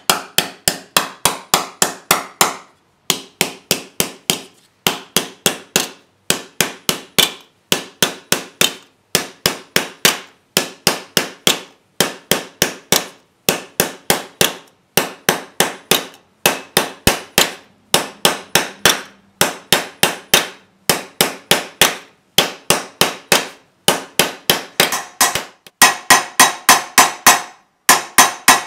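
Rapid hammer strikes on a thin copper bowl, about five a second in short runs broken by brief pauses, each blow leaving the copper ringing. Near the end the strikes get louder.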